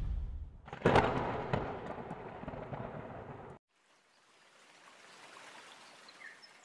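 Intro sound effect: a sudden hit about a second in, followed by a noisy tail that fades away over two or three seconds, then near silence.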